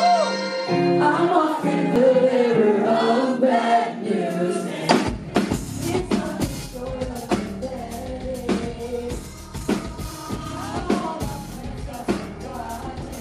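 Live rock band with a woman singing lead into a microphone. It opens with voice and held chords and no low end; about five seconds in, the drums and bass come in with a steady beat.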